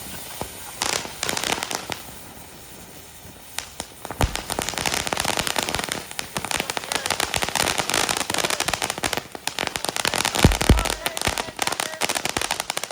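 Consumer fireworks going off in rapid crackling pops. A short burst comes about a second in, then a long dense run of crackling starts about four seconds in and stops near the end, with a couple of deeper booms inside it.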